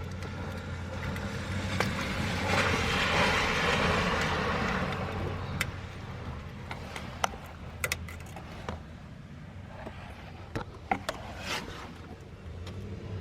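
A steady low hum, with a rushing swell of noise that rises and fades over about three seconds. It is followed by scattered sharp clicks and snaps as the rear ABS sensor's wiring connector is worked loose.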